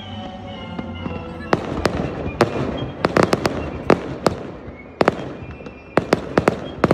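Aerial fireworks going off: a rapid string of sharp bangs and crackles that starts about one and a half seconds in and comes in clusters.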